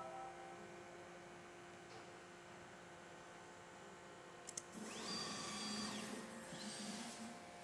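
Stepper motors of a desktop pick-and-place machine: a faint steady hum, two sharp clicks about four and a half seconds in, then a motor whine that rises in pitch, holds and falls again as the head moves.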